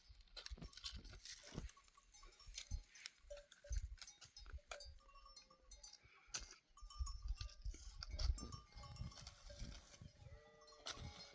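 A herd of sheep and goats, with faint bleats and bells clinking among scattered knocks and low rumbles.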